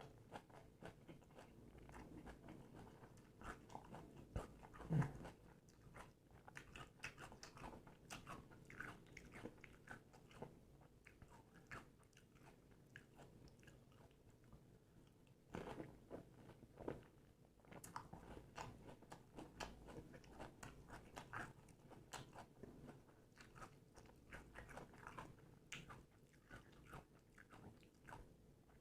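Close-miked crunching and chewing of pani puri: crisp hollow puris being bitten and chewed, with frequent small crackles and wet mouth sounds, and one louder mouth sound about five seconds in.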